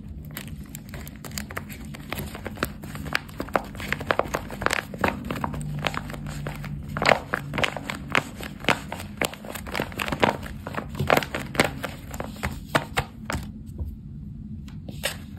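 Paper and tape crinkling in quick irregular crackles as a tape-covered paper squishy cube is pressed and squeezed in the hands; the crackling dies away near the end.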